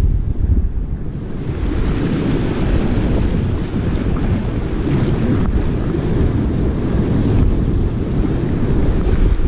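Small sea waves breaking and washing over rocks at the water's edge, the hiss of the surf swelling up about a second and a half in, with wind buffeting the microphone.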